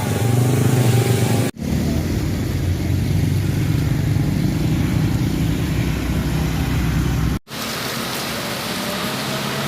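Motor vehicle engines running in outdoor street sound, broken by two abrupt cuts. After the second cut, about seven seconds in, a steady hiss takes over.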